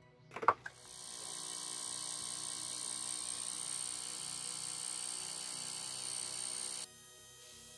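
A few knocks as a steel hammer head is set down on a concrete slab, then a steady hiss with a thin high whistle from gas flowing out of a small brass torch nozzle, which cuts off suddenly about a second before the end.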